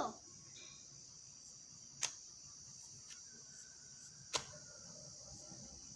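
Crickets chirping steadily, with two sharp clicks about two seconds apart.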